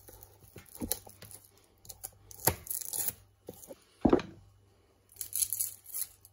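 Dry, papery shallot skin being torn and peeled off by hand, in short crackling, rustling bursts with pauses between them. There is a single dull knock about four seconds in.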